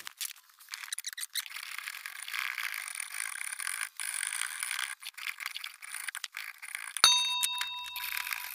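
Draw knife shaving a 2x4, a scraping rasp in repeated pulling strokes. About seven seconds in, a sharp click and a ringing bell-like ding from a subscribe-button sound effect.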